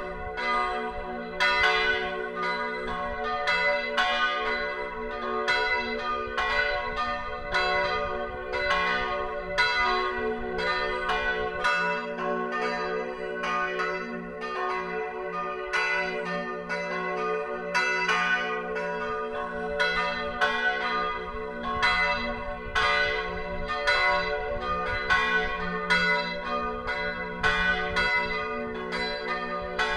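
Full peal of three church bells tuned to F-sharp, B and D-sharp, cast in 1582, 1604 and 1947, ringing together. The strikes come in a steady, irregular stream of about one to two a second, each ringing on over the others.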